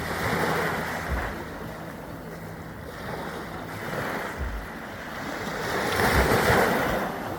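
Caribbean surf: waves breaking and washing up the beach, a swell at the start and a louder one about six seconds in. A low steady hum runs under it and stops about halfway through.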